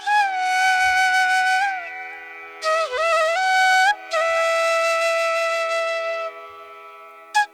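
Ringtone music: a flute melody of long held notes that slide and dip between pitches, over a steady low drone. The melody drops away in the last second or so, with one brief note near the end.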